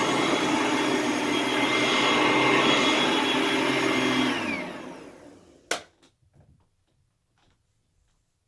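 Hoover Platinum Collection bagged upright vacuum cleaner running steadily, then switched off a little after halfway: its motor whine falls in pitch and fades as it spins down. A single sharp click follows, then only faint small ticks.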